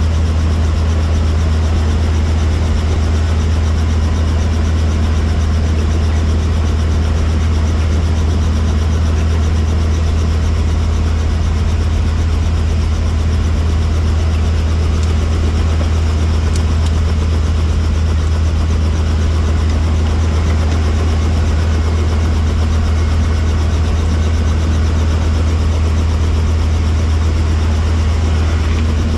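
Helicopter running, its rotor and engine making a steady low hum that does not change.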